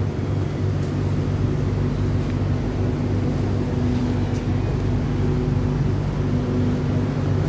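Steady electric hum of a stationary SRT Red Line electric multiple unit, a Hitachi-built train, with its on-board equipment running while it waits at the platform. The hum is made of several low, even tones.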